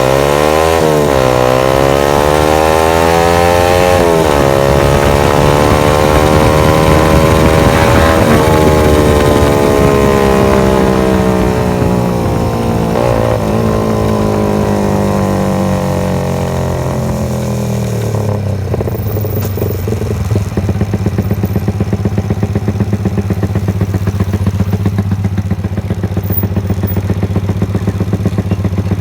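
Yamaha TFX motorcycle engine pulling through the gears, its pitch climbing and then dropping sharply at each shift, three times in the first nine seconds. The engine then slows gradually and settles to a low, steady idle for the last third.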